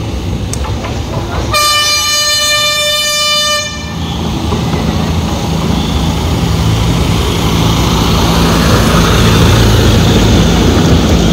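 A small park toy train blows its horn once, a steady note lasting about two seconds. Its engine and wheels then run steadily, growing louder as it pulls in and passes.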